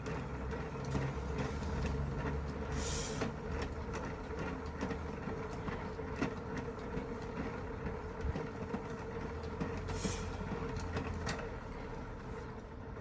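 Mini manual washing machine being hand-cranked: the drum of wash load rotating with a steady rumble and a run of small clicks, and a brief swish twice.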